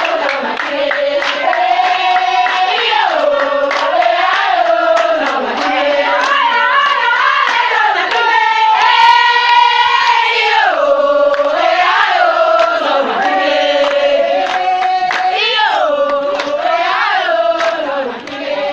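A crowd singing a celebratory song together with hand clapping, the voices carrying one strong melody line with a long held high note about nine seconds in.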